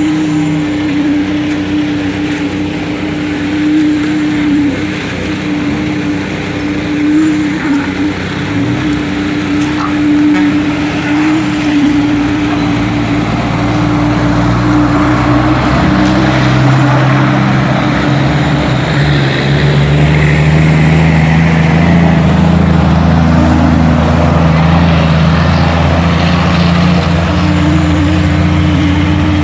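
Heavy truck engine running steadily with a constant hum, growing louder with a deeper engine note from about halfway through, as at a concrete pour with mixer or pump trucks working.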